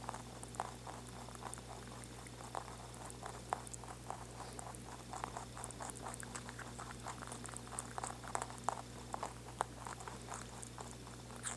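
Two rabbits chewing celery: a fast, irregular run of small crisp crunches and clicks from their teeth biting and grinding the fibrous stalks and leaves.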